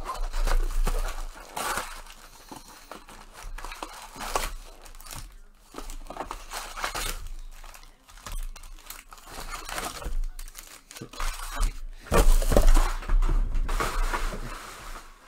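Foil trading-card pack wrappers being torn open and crinkled, in irregular crackling bursts, loudest about twelve seconds in.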